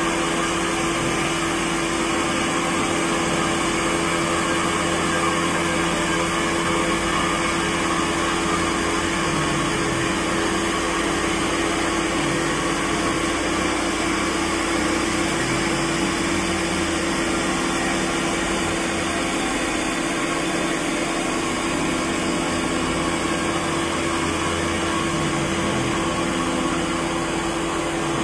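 CNC vertical machining center face milling a block under flood coolant: steady spindle and cutting noise with a constant mid-pitched whine.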